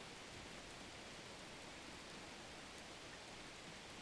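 Hot oil sizzling steadily around food deep-frying in a pan, a faint, even hiss.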